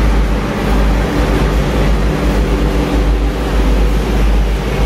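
Steady low rumble of a Sabah State Railway train's diesel engine idling at close range, with a faint hum over it.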